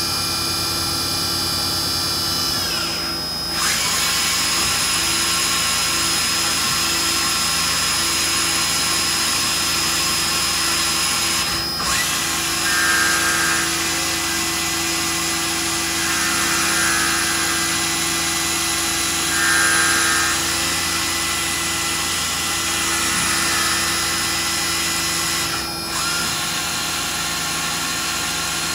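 Star SR-32J CNC Swiss-type lathe machining bar stock under flood coolant: a steady machine whine over the hiss of coolant spray. In the first few seconds the whine falls in pitch. After that the running stays steady, with a short repeated cutting sound about every three seconds.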